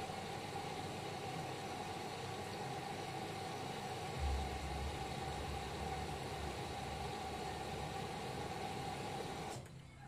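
Whirlpool FL 5065 front-loading washing machine running its rinse cycle: a steady mechanical hum with water in the drum. A deeper rumble joins about four seconds in, and the noise stops abruptly near the end.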